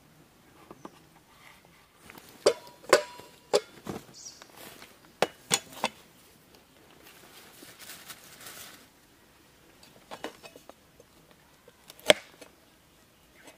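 Knife chopping a carrot on a plastic cutting board: single sharp knocks, a cluster of them in the first half and one loud stroke near the end, with a soft rustle in between.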